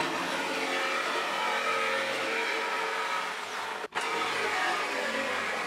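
Reciprocating saw running steadily as it cuts through the rusted sheet steel of a car's inner fender panel, with a brief break about four seconds in.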